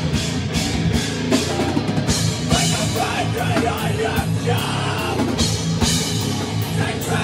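Live rock band playing loud and close in a room: electric guitar and a drum kit with frequent cymbal strokes, with a singer's voice over them.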